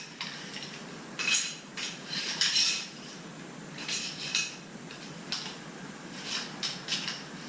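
Lengths of 3/4-inch EMT steel conduit clinking and rattling against each other as they are handled, a dozen or so short metallic knocks in loose clusters, some ringing briefly.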